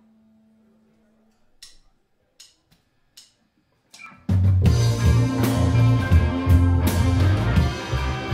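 Four evenly spaced count-in clicks, then the live rock band comes in together about four seconds in: electric guitars, bass guitar and drum kit playing at full volume.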